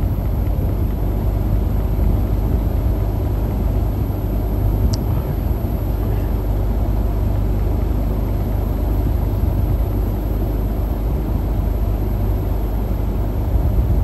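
Steady low rumble of running machinery, with one faint click about five seconds in.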